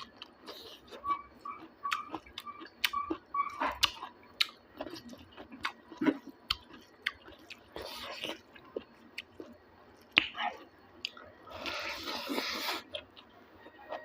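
Close-up chewing and biting of pork and bamboo shoot: many short, sharp clicks, and two longer noisy stretches about eight and twelve seconds in.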